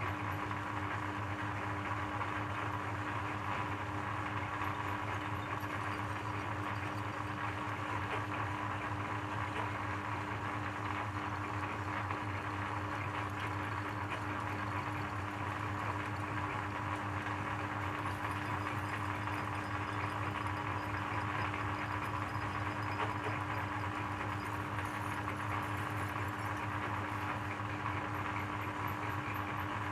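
Electric shredder running steadily, a constant hum and whir with no change in pitch or level.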